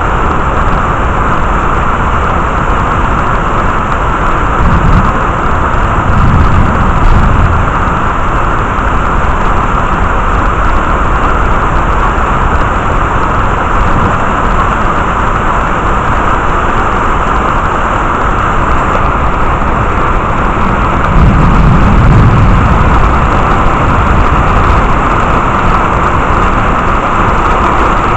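Steady heavy rain during a thunderstorm, with two low rumbles of thunder, one about five seconds in and another just past twenty seconds.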